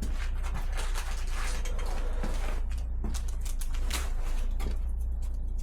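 Old air compressor running steadily with a low hum as it slowly fills its tank, with a few light knocks and rustles of handling over it.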